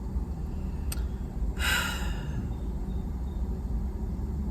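A woman sighs once, a short breathy exhale about a second and a half in, over a steady low hum.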